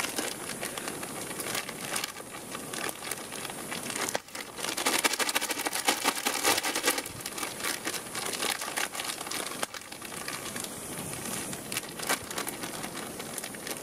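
Plastic Ziploc freezer bag crinkling and crackling as bannock dough is kneaded inside it by hand, busiest about five to seven seconds in.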